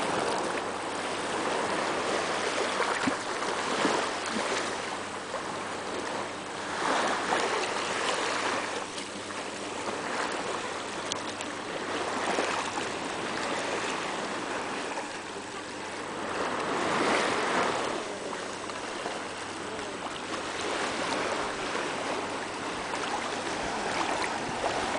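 Sea water lapping and sloshing close by, swelling and easing every few seconds with the small waves.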